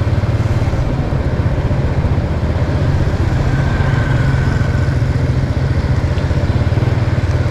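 Motorbike engine running steadily while riding along a road, a rapid low pulsing close to the microphone, with road and wind noise over it.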